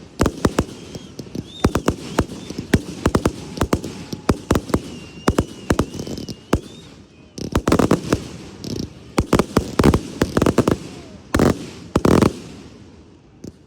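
Fireworks show: many sharp bangs of bursting shells in irregular succession, a dense volley about eight seconds in and the loudest bursts near the end, then thinning out.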